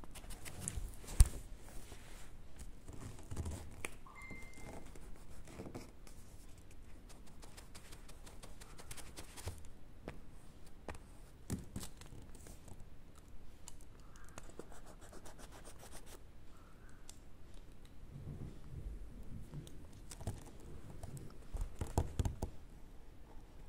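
Pen scratching on paper in short strokes, with scattered small clicks and knocks; one sharp click about a second in.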